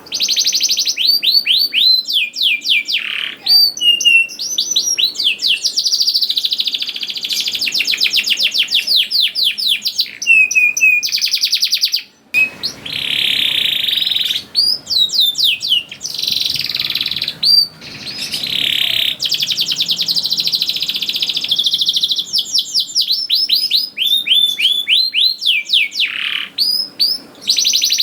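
Canary singing a long continuous song of fast rolling trills and runs of quick downward-sweeping chirps, with one brief break about twelve seconds in.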